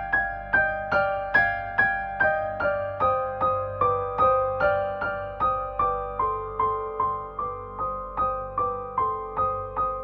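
Background music: a slow piano melody, about two to three notes a second, each note fading after it is struck, the tune stepping gradually down in pitch.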